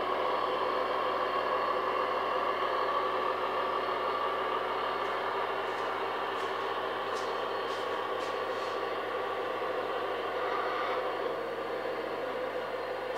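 Model DB class 211 diesel locomotive running, a steady mechanical hum with a few faint clicks about six to nine seconds in.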